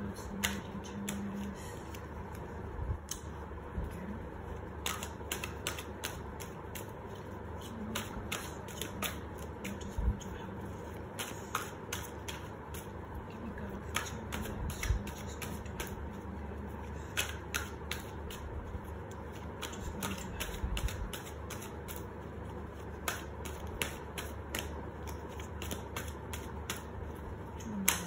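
Tarot cards being shuffled by hand: an irregular run of light, sharp card clicks and flicks, with a cluster of clicks near the end as a card is laid down.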